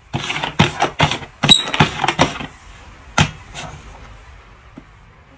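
Cups being shuffled on a tabletop board: a quick run of sharp knocks as they are set down and moved, then one more knock about three seconds in.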